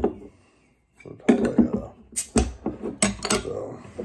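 A short snap as a bottle opener pries the cap off a glass beer bottle. Then, from about a second in, beer glugs and splashes from the bottle into a stemmed glass, with light clinks of glass on glass.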